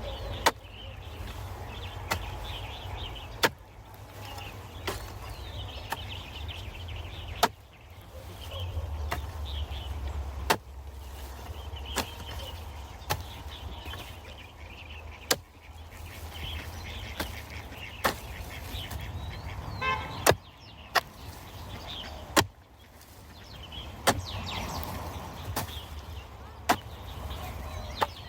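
A hand digging tool chopping into soil, a sharp strike about every one and a half seconds, over a low steady rumble, with faint bird chirps.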